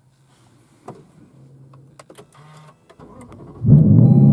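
Lexus LC 500's 5.0-litre naturally aspirated V8 with an aftermarket exhaust starting up: a few faint clicks, then about three and a half seconds in the engine fires suddenly and runs loudly.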